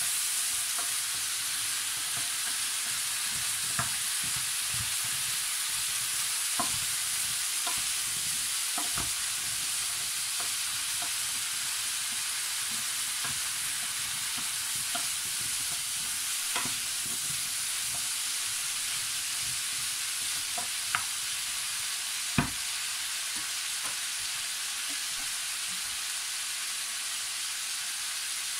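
Diced potatoes and root vegetables sizzling steadily in a hot roasting pan while a wooden spoon stirs them, with scattered knocks of the spoon against the pan, the sharpest about three quarters of the way through.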